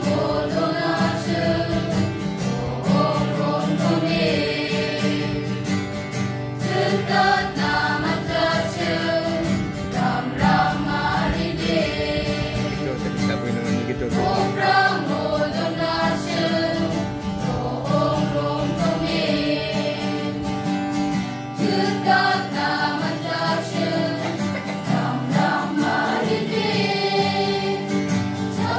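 A small choir of young voices singing a gospel song together, accompanied by a strummed acoustic guitar.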